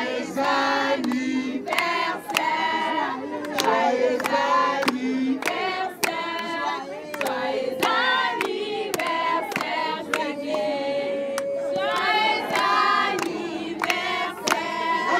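A group of people singing together and clapping along in time, about two claps a second.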